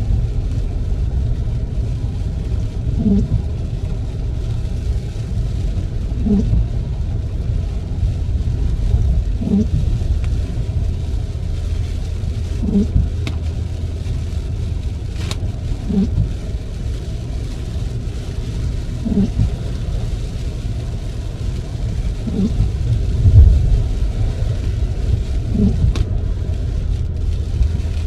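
Car windscreen wipers sweeping about once every three seconds, each pass a short low squeak or judder: the wiper blades are dragging stiffly on the glass. Under them runs a steady low rumble of the car driving on a wet road.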